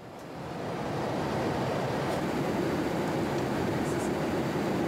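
Steady in-flight cabin noise of a Boeing 787 Dreamliner: an even rush of airflow with a low engine drone underneath, fading in over the first second and then holding level.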